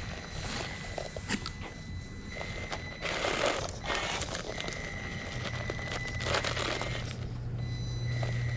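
Traxxas TRX-4M Bronco 1/18-scale RC crawler working its small brushed motor and gears over broken concrete and loose dirt. A thin high whine comes and goes with the throttle, a low hum joins about halfway, and gritty crunching and scraping of tyres on rubble peak around three to four seconds in and again near seven seconds.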